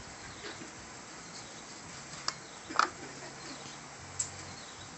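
Kitchen knife tapping on a wooden cutting board as chili peppers are sliced: three sharp taps, the loudest about halfway through.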